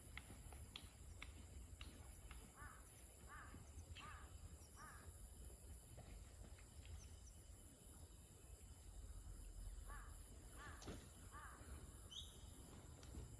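Forest ambience: a steady high-pitched insect drone, with a bird calling in two bouts of repeated notes, four and then three, a little under a second apart.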